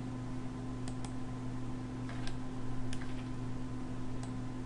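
Computer mouse clicking a handful of times, several clicks coming in quick pairs, over a steady low electrical hum.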